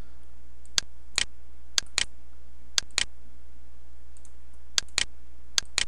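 Computer mouse button clicking: five quick pairs of sharp clicks, each pair about a fifth of a second apart, over a steady low electrical hum.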